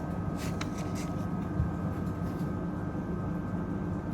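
Steady low background hum with a faint constant whine and a few faint clicks about half a second in.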